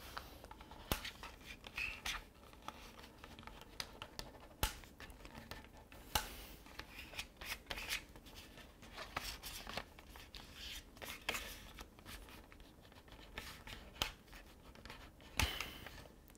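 A sheet of 90 g paper being folded and creased by hand on a cutting mat, with a folding card pressed and drawn along the creases: soft rustling and scraping broken by short sharp clicks and taps.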